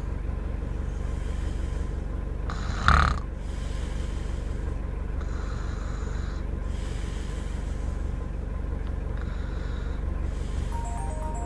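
A sleeping person snoring in slow, regular breaths over a steady low hum, with one loud sudden snort about three seconds in. A few short beeps sound near the end.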